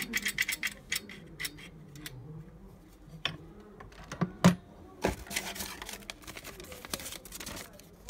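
Steel mortise lock parts handled: a run of light metallic clicks and taps as the lock body and faceplate are turned over, with one loud knock about four and a half seconds in. From about five seconds on, paper rustling as the folded instruction sheet is pulled out of the box.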